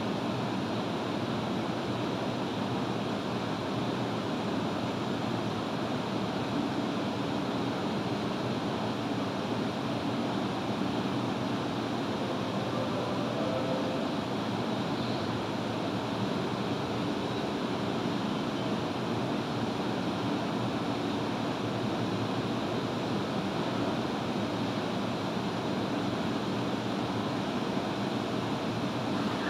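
Seibu 30000 series electric commuter train standing idle at the platform, giving a steady hum and hiss from its running on-board equipment.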